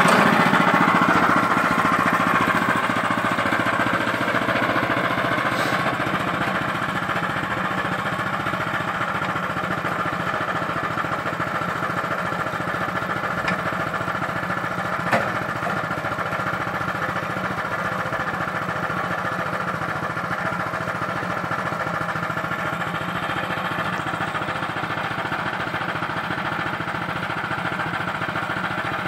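Small engine of a Range Road RR5022 portable bandsaw mill running steadily as the band blade saws through a spruce log, fading somewhat over the first few seconds. A single sharp click about halfway through.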